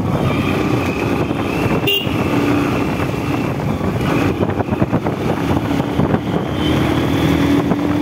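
Motorcycle engine running while riding at low speed, with wind rushing over the microphone. A faint steady tone sounds over it twice, about two seconds in and again near the end.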